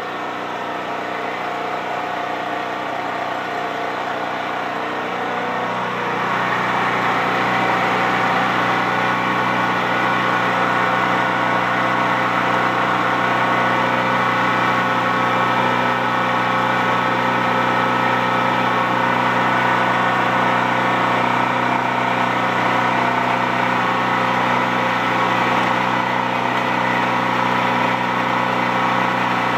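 Champion C46540 portable generator's single-cylinder four-stroke engine running steadily just after a tune-up with a new spark plug, fresh oil and a cleaned, oiled foam air filter. It gets a little louder about six seconds in, then holds a steady pitch.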